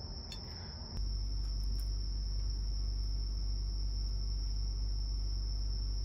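Crickets or other insects chirring steadily in one high, unbroken tone. About a second in, a steady low hum comes in, with a few faint clicks before it.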